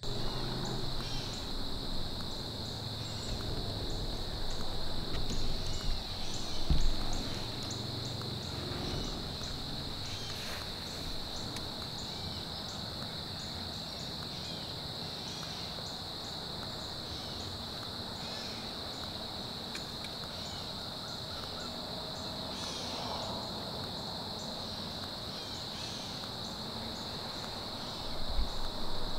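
Dusk woodland insect chorus: a steady high-pitched drone with rows of faster ticks above it. Low rustling comes through in the first few seconds, with a dull thump about seven seconds in.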